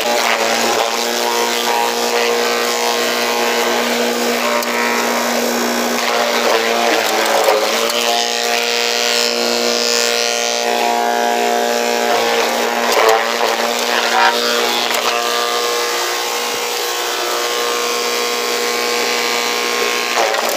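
Forage chopper running steadily while whole corn plants are fed into it and shredded into rolão horse feed. Its note shifts as stalks are pulled in and chopped, most clearly around eight seconds in and again around thirteen to fifteen seconds.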